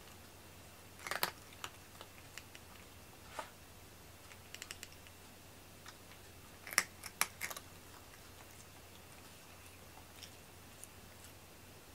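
A cat eating from a ceramic bowl: small crunching clicks in irregular clusters, the loudest about a second in and around seven seconds in.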